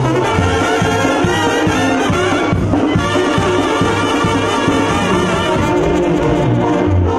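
Live Mexican banda music: a brass section of trumpets and trombones playing the melody over a steady, pulsing bass line and drum beat.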